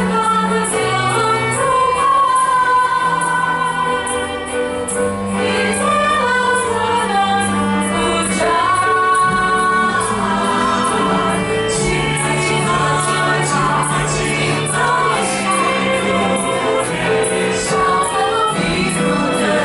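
Mixed choir of women and men singing in harmony into microphones, mostly women's voices, over held low notes that change every few seconds.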